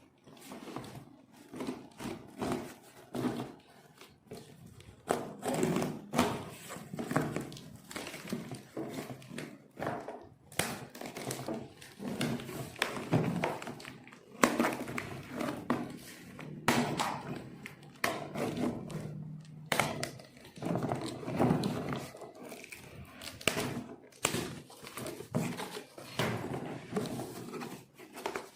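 Irregular knocks, thuds and clatter of hard objects being handled and set down, many times a second at the busiest moments.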